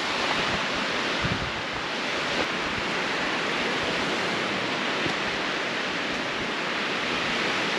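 Steady rush of lake waves washing on the shore, mixed with wind.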